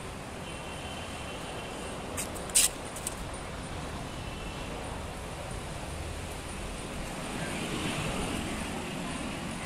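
Steady hum of city road traffic, with a sharp click about two and a half seconds in.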